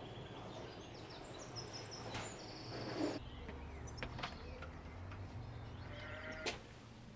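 Countryside ambience: small birds chirping on and off over a low steady rumble, with a few faint knocks.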